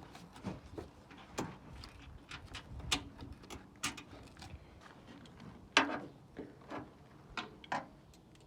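Scattered clicks and knocks of hand tools and metal parts being handled while a bolt is taken out of a truck's front end, with one louder knock about six seconds in.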